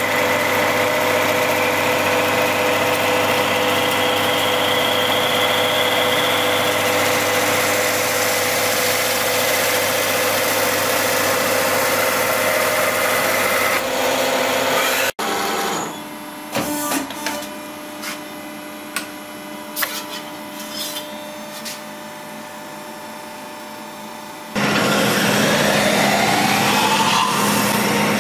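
Metal spinning lathe running, its roller pressing sheet metal into a long cone: a steady machine hum with a whine that slowly rises in pitch. After an abrupt break comes a quieter stretch of scattered knocks and clicks, then a manual spinning lathe runs loud again, a hand lever tool pressing the spinning disc, with another rising whine near the end.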